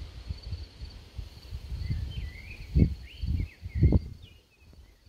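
Outdoor ambience: wind buffeting the microphone in gusts, loudest about three and four seconds in, over small birds chirping and a steady high insect trill.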